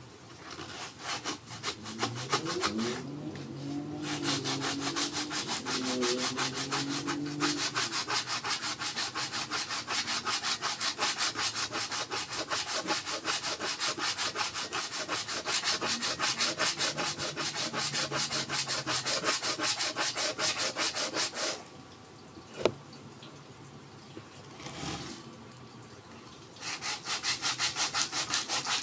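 Sandpaper rubbed by hand over the wooden body of a forest red gum didgeridoo in fast back-and-forth strokes. The sanding stops for about five seconds near the end, with a single tap in the pause, then starts again.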